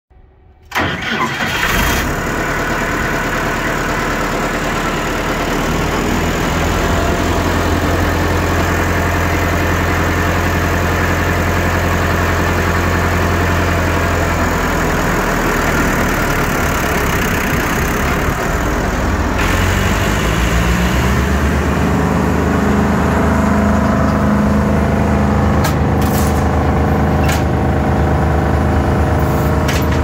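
Vermeer BC1230 wood chipper's engine starting a moment in and running steadily. About twenty seconds in it is throttled up and settles at a higher, steady speed, with a few sharp clicks near the end.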